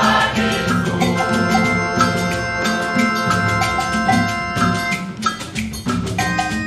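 Instrumental break in a gospel choir song: held chords over a steady percussion beat and a repeating bass line, with no singing.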